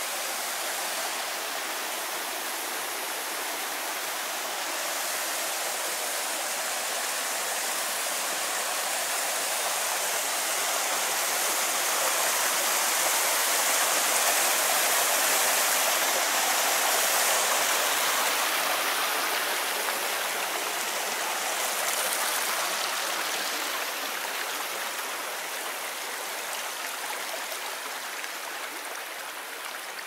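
Rushing water of a mountain stream cascading over rocks at the head of a waterfall, a steady rush that grows louder toward the middle and fades toward the end.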